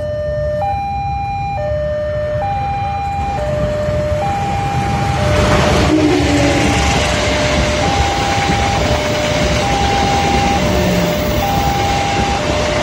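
Level-crossing warning alarm sounding a two-tone high-low pattern, changing tone about once a second. About five seconds in, it is joined by the loud, steady rumble of a passing train: a GE diesel-electric locomotive's engine and steel wheels on the rails, running on as the coaches go by.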